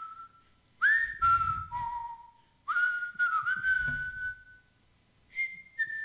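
A person whistling a tune: phrases of held notes, each scooping up into pitch, then two short higher notes near the end. Some low rumbling sits underneath the middle phrases.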